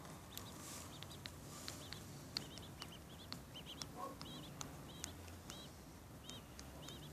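Ducklings peeping: short, high, arched peeps repeated about one or two a second, faint.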